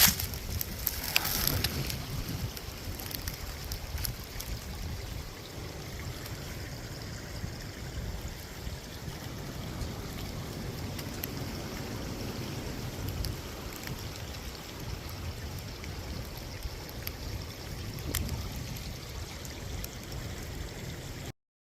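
Valley stream running, a steady rush of flowing water, with a low rumble underneath and a couple of brief knocks near the start.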